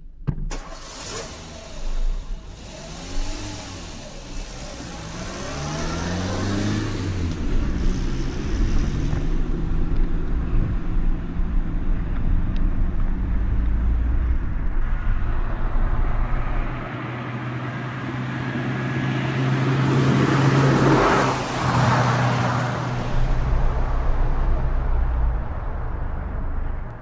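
Car engine accelerating as the car drives across grass, the engine note rising several times in the first few seconds and then running on steadily, with tyre and ground noise loudest a little past the middle.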